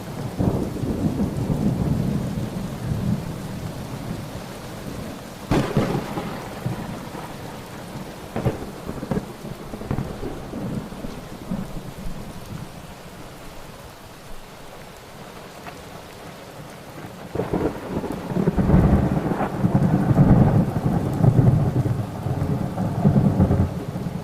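Thunderstorm: steady rain with rolling thunder, a sharp thunderclap about five seconds in, a few smaller cracks after it, and a long deep rumble building over the last seven seconds.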